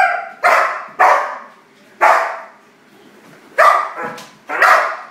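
A large shepherd-type dog barking loudly: about six sharp, single barks with uneven pauses between them.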